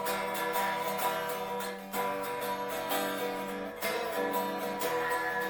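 Eko Camaro electric guitar played unplugged: strummed chords on its factory strings, about two strums a second, more or less in tune straight out of the box.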